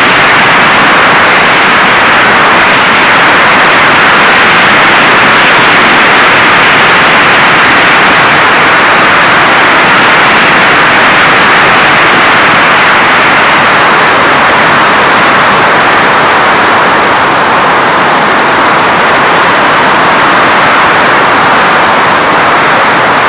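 Loud, steady rushing noise of the airstream and propeller heard from a camera mounted on an FPV Raptor radio-controlled plane in flight.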